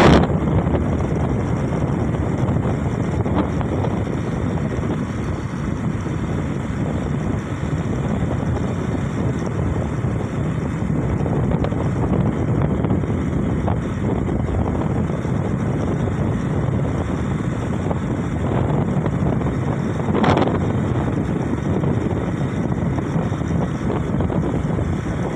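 Steady rush of wind buffeting the microphone, mixed with the road and engine noise of a vehicle travelling at speed. One brief louder swell comes about twenty seconds in.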